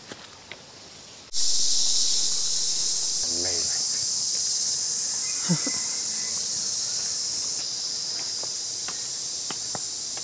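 Loud, steady, high-pitched chorus of insects, starting abruptly about a second in.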